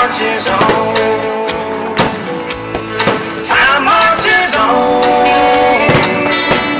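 Music: a song with a singing voice over a band, with sharp beats about once a second.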